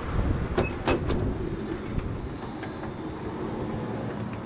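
Minivan sliding side door pulled open by its outside handle: a few sharp latch clicks within the first second, then a steady rumble as the door opens.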